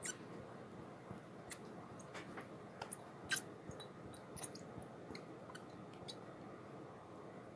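Thick plain yogurt poured and squeezed from a plastic cup into a blender jar: faint squishing with scattered small clicks and crackles from the plastic cup, the loudest a little over three seconds in.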